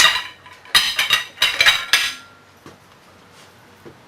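Steel clanking: about six sharp metal-on-metal strikes with a bright ringing in the first two seconds, then only a few faint ticks.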